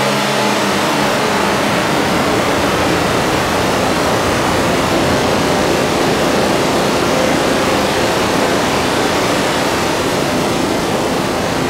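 Make Noise modular synthesizer, with Strega and the other echo devices running in a feedback loop, putting out a loud, dense noisy wash. A few held low tones fade out within the first second.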